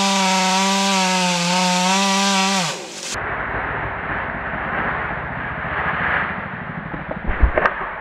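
Stihl chainsaw running flat out at a steady high pitch, its revs falling away after about two and a half seconds. The sound then switches abruptly to an even rustling noise, with a few sharp thumps near the end.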